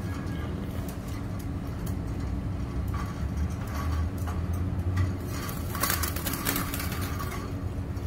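Steady low background rumble, with a short burst of rustling and clicking about six seconds in.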